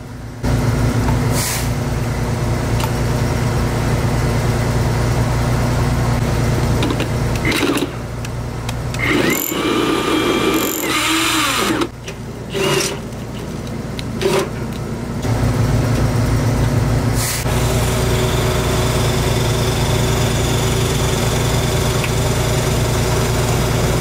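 Power tools drilling. First a Milwaukee SDS rotary hammer runs steadily with a fast chatter as it enlarges a hole through concrete. Then, after several short starts and stops, a cordless drill runs steadily again as it bores into a sheet-metal electrical trough.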